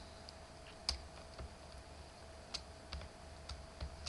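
Scattered light clicks of computer input, about six in four seconds, over a faint steady electrical hum.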